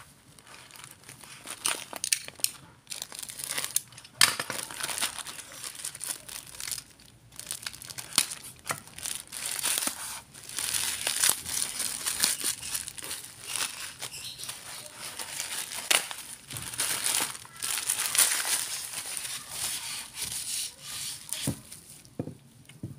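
Black plastic mailer bag crinkling and tearing as it is pulled open by gloved hands, with irregular rustling and a few sharp crackles.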